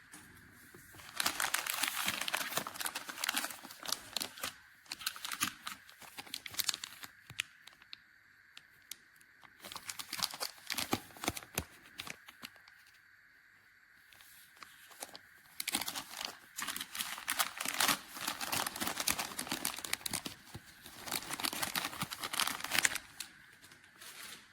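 Plastic packaging crinkling and rustling as it is handled, in three bouts: near the start, around the middle and through most of the last third.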